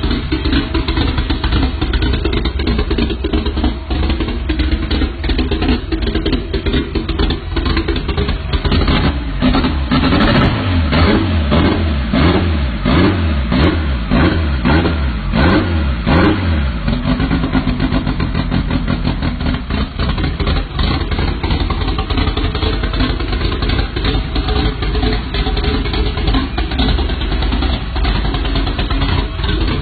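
A vehicle engine with a loud exhaust running, then revved repeatedly in the middle, its pitch rising and falling several times before it settles back.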